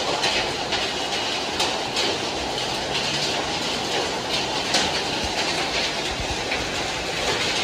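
Heavy rain pouring steadily onto a city street, with traffic running over the wet road below.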